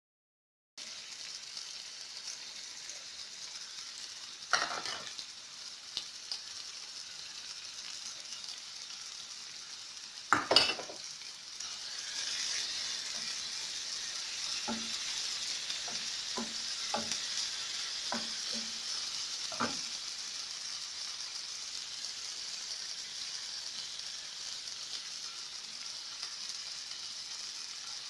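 Food frying in a hot pan, sizzling steadily. Two sharp knocks come about four and ten seconds in, and the sizzle grows louder soon after the second. A run of light taps follows from stirring.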